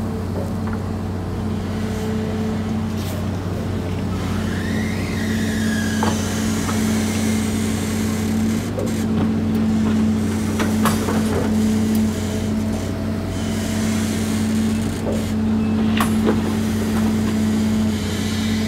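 Hydraulic excavator's diesel engine running steadily with a low, even hum as the bucket digs and dumps sand, with scattered sharp knocks and clanks.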